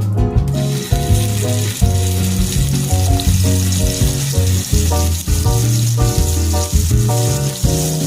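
Food sizzling in a hot frying pan, a steady hiss that starts about half a second in, over background music with a strong bass line.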